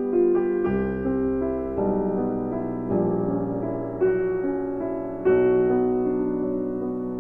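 Background piano music: slow, gently played chords changing about once a second.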